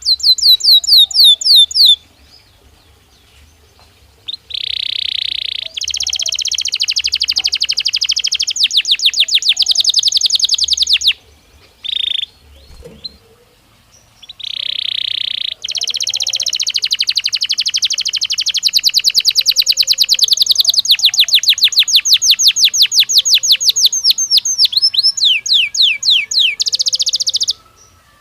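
Belgian canary singing: long phrases that open on a held note and run into fast rolling trills of rapidly repeated notes, with runs of quick falling whistles at the start and near the end. Short pauses separate the phrases.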